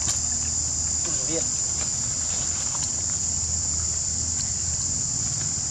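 Insects droning steadily at a high pitch, with one brief wavering squeak about a second in.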